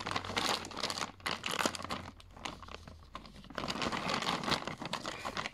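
Clear plastic bag crinkling and rustling as it is handled and opened, with a model horse pulled out of it. It quietens in the middle and grows denser over the last couple of seconds.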